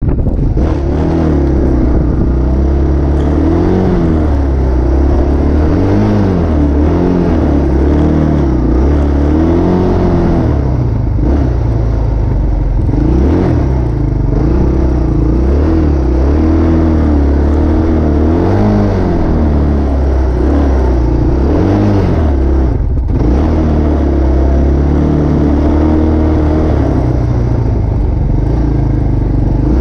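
A motor vehicle's engine running loud and close, its revs repeatedly rising and falling every few seconds over a steady low rumble.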